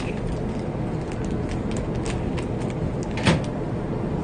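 Light clicks and crinkles of a plastic sausage wrapper and chopsticks being handled over a paper food cup, over a steady low rumble, with one sharp knock about three seconds in.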